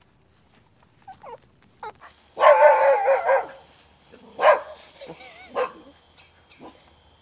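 A dog calling: a few short yelps, then a loud, wavering whining cry about a second long, followed by several shorter barks and yelps.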